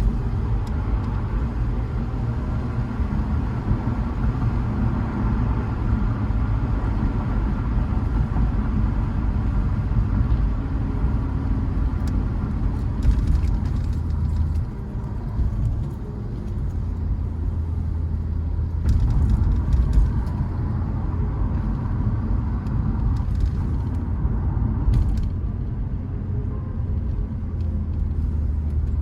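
A motor vehicle driving: steady engine and road rumble, with short patches of crackling clicks and rattles a few times along the way.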